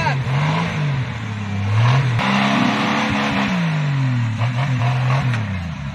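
Tubular off-road buggy engine revving up and down several times under load as it claws up a muddy slope, with a rush of churning tyres and flung mud mid-way.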